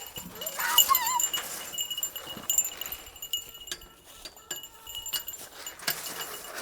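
A Nigerian dwarf goat bleats once, a short wavering call about half a second in. Light clinks and taps follow a few seconds later.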